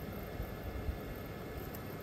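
Popcorn kernels heating in an electric kettle pot: a steady low hiss, with one faint pop about a second in.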